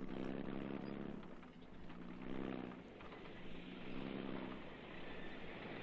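A vehicle engine running with a low hum, swelling and easing off several times.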